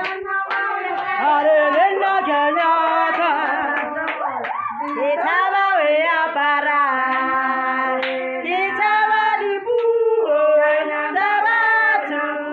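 A group of women singing a song together, with several voices holding long notes at once.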